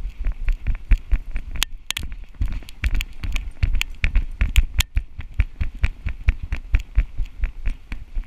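Rhythmic thumps and clicks, about four to five a second, from a GoPro Hero3 on a giant schnauzer's Fetch harness jolting with each stride as the dog runs, with a brief lull about two seconds in.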